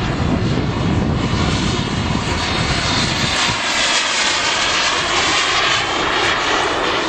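Radio-controlled Eurofighter model jet's engine running steadily in flight, a continuous rushing sound whose tone sweeps as the model passes. Gusty wind rumble on the microphone eases about halfway through.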